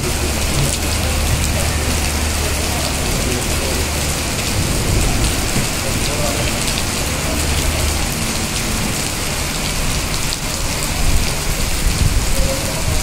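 Rain falling steadily and hissing on hard surfaces, with a low hum that comes and goes underneath.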